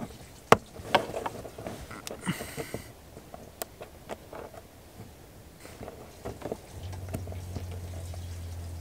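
Small clicks, taps and a brief scrape of handling as the stay of a Dometic Seitz camper window, a rod with a spring-loaded ball and a retaining clip, is worked apart by hand. A low steady hum sets in about three quarters of the way through.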